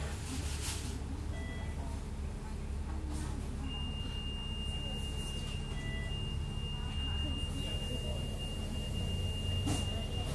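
Steady low rumble of a double-decker bus riding on the upper deck. A couple of short high beeps come early, then a single steady high electronic tone comes in about four seconds in and holds.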